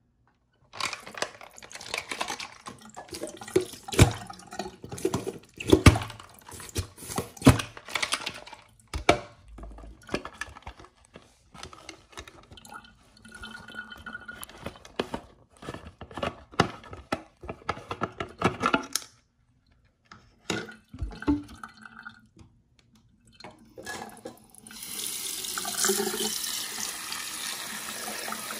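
Crinkling and crackling of foil and plastic blind-bag packaging being handled and torn open, in irregular bursts with a few short pauses. Near the end a steady, water-like hiss sets in.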